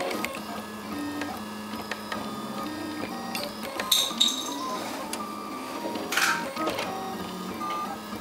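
RepRap Prusa Mendel 3D printer's stepper motors whining as the print head moves, in short steady tones that jump from pitch to pitch as it changes direction and speed. A couple of brief louder noises come about four seconds in and just after six seconds.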